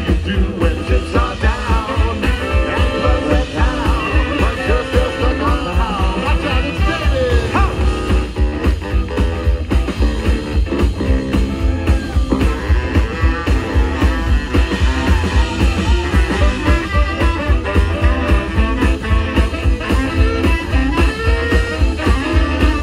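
Live band playing a song with a steady, driving beat.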